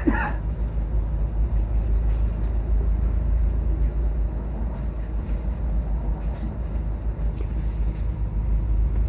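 Steady low rumble of a Volvo double-decker bus heard from inside its upper deck: engine and road noise as it drives.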